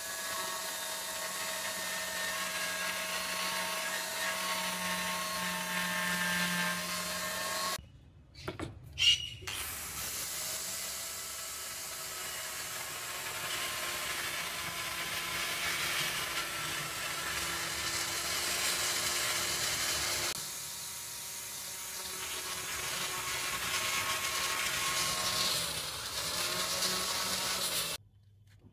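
Angle grinder running with an abrasive disc against a steel blade, grinding and sanding down its surface; a steady high motor whine with the rasp of the disc on the metal. The sound breaks off briefly about eight seconds in and stops abruptly shortly before the end.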